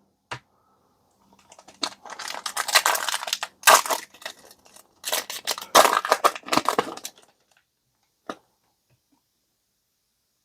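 Foil booster-pack wrapper crinkling and tearing open, in two crackly bursts a couple of seconds each, followed by a single light tick.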